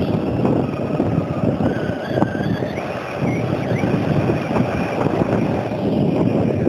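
Skateboard wheels rumbling over rough asphalt as a Traxxas Slash RC truck with a Castle brushless motor pushes the board, with wind on the microphone. The truck's thin motor whine climbs in pitch about two seconds in as it builds speed, then holds higher.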